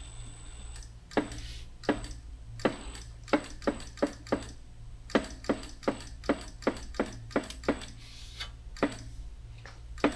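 Motorized bead roller running with a low hum while a sheet-metal panel is fed through its dies to turn up a flange. Sharp, irregular clicks come about two or three a second as the metal passes the rollers.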